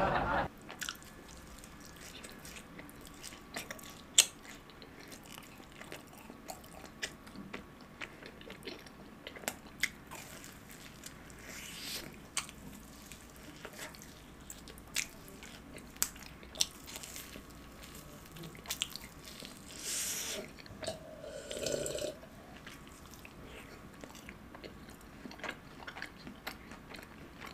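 A person eating fried cheese balls: chewing and biting with scattered crisp crunches and wet mouth sounds, and a brief breathy stretch about three quarters of the way through.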